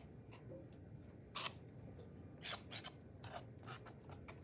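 A tool scoring the bevelled edges of soft, workable clay slabs: a handful of short, faint scratching strokes from about a second in.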